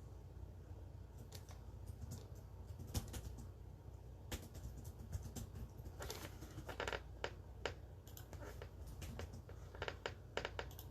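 Faint, irregular clicking of keys on a computer keyboard as someone types, over a steady low hum.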